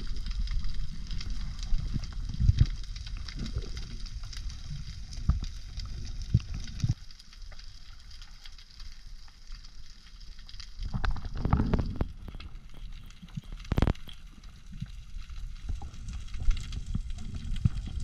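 Underwater sound as picked up by a diver's camera: a low rumble of moving water with a faint hiss above it and scattered sharp clicks. The rumble swells for about a second past the middle, and the sharpest click comes near the end.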